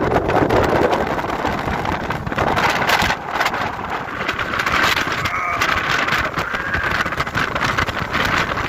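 Storm-force wind buffeting the microphone, loud and gusty with constant crackling. A wavering whistle comes in about halfway through.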